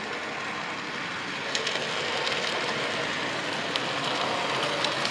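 OO gauge model train, a steam-outline locomotive hauling coaches, running along the track: a steady rolling rumble that grows louder about a second and a half in as it draws near, with a few sharp clicks.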